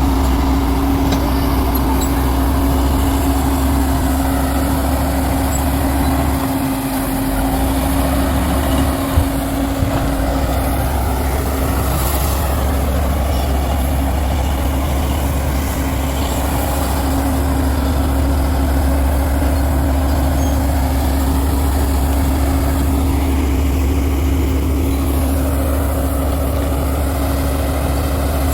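Heavy earthmoving machine's diesel engine running steadily: a deep low rumble with a steady hum above it, easing off briefly about six seconds in, with a single knock around nine seconds.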